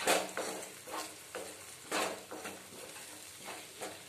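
Wooden spatula stirring and scraping a wet egg and chickpea mixture in a kadhai, in repeated strokes about two a second, over the sizzle of frying.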